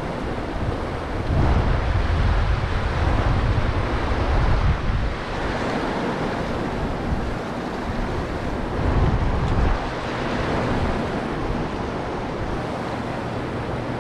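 Fast river riffle rushing over boulders, a steady rush of water, with wind buffeting the microphone in heavier gusts twice.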